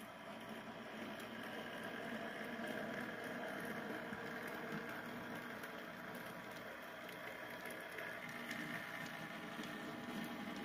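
HO scale model diesel switcher locomotive running along the track with a steady engine-like hum.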